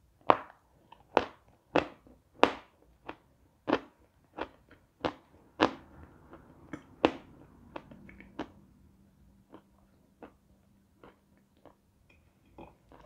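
Crunchy bites and chewing of a chunk of edible chalk: loud sharp crunches about every half second to second, growing softer and sparser after about seven seconds.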